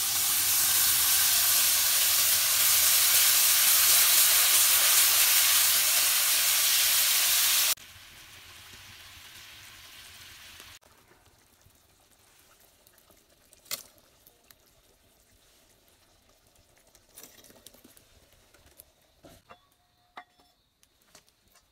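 Potato and chickpea curry sizzling loudly in a metal kadai as liquid is poured in from a pot. The sizzle cuts off abruptly about eight seconds in, leaving a soft hiss, then near quiet with a sharp click and a few light knocks.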